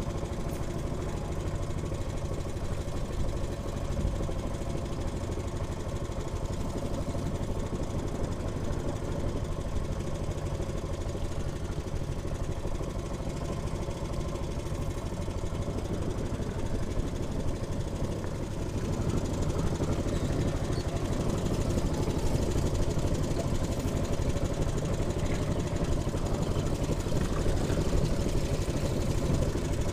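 Small wooden fishing boat's engine running steadily at low speed, a continuous low hum that grows a little louder about two-thirds of the way through.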